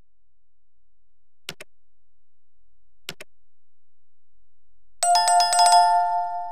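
Sound effects from a subscribe-button animation: two faint mouse clicks, then a bright notification-bell chime about five seconds in, several tones ringing together and slowly dying away.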